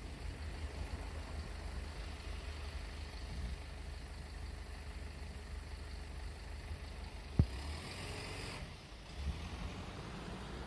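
Fire truck engine idling with a steady low rumble. About seven seconds in there is a sharp knock, followed just after by a short burst of hiss.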